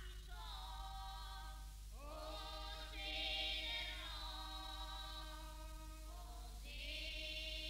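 Quiet background music of long held, choir-like notes, with a new chord sliding in about two seconds in and again near the end.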